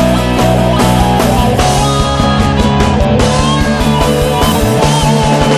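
Instrumental passage of a Tagalog pop-rock song: guitar over a steady beat, with no singing.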